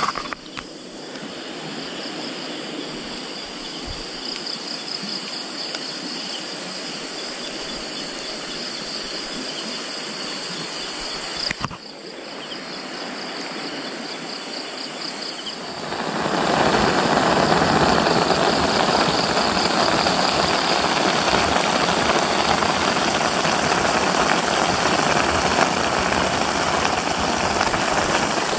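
Crickets chirping steadily in a fast pulsing trill. About sixteen seconds in, a louder steady sizzle takes over: eggs frying in a wok on top of stir-fried leafy greens.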